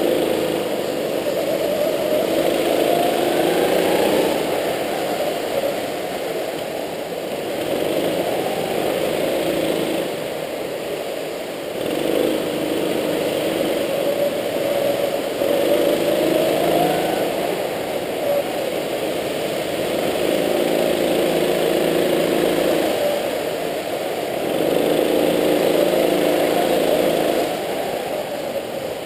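Go-kart engine heard from onboard, revving up out of each corner and dropping back as the driver lifts for the next, about six times over.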